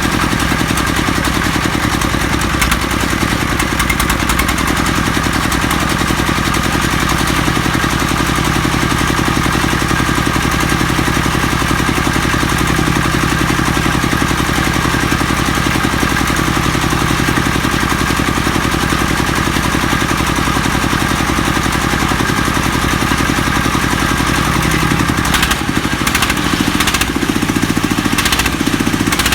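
Jiangfa D30 engine running steadily. A few sharp clicks come near the end as the low sound shifts.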